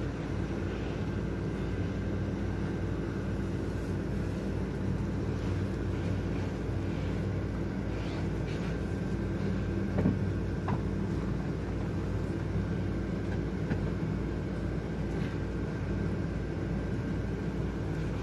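A steady low hum, like a fan or motor running, with a brief knock about ten seconds in.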